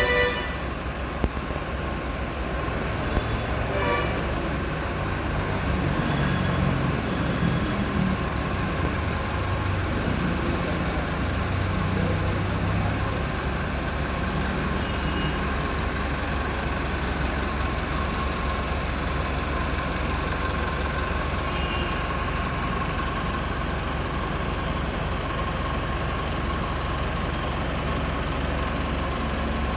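Eicher BS4 vehicle's diesel engine idling steadily, with a few sharp short clicks in the first four seconds.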